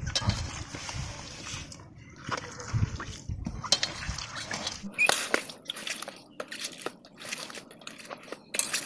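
Wet squishing and crackling as washed mahua flowers are crushed and squeezed by hand in a steel bowl, pressing out their juice, in quick irregular squelches.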